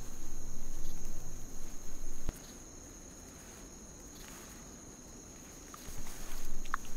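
Forest insects, crickets or the like, making a steady high-pitched buzz. Low background music plays over it and cuts off suddenly about two seconds in, after which the insects carry on more quietly with a few short chirps near the end.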